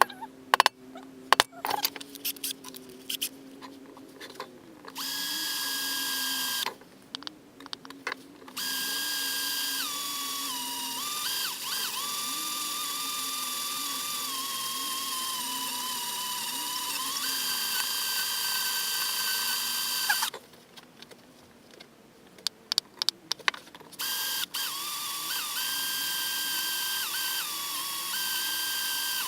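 Electric drill boring a hole in a metal part, running in three stretches with a steady whine that dips and shifts in pitch as it bites. Sharp handling clicks and knocks come before the first run and between runs.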